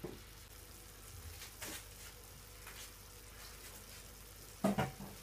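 Tomato slices and peppers frying gently in oil and butter in a nonstick frying pan: a faint, steady sizzle with a few scattered crackles. A brief louder sound comes about four and a half seconds in.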